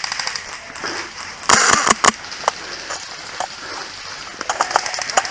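A short burst of airsoft gunfire, a quick string of sharp pops about a second and a half in with one more shot just after, then scattered small clicks and snaps.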